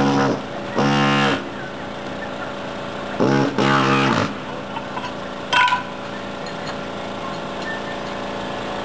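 Gison GPW-4500 pneumatic air hammer buzzing in short bursts as it chisels ceramic tiles loose, the note dipping as each burst starts and stops. There are three bursts, the longest about a second, and a short sharp crack about five and a half seconds in.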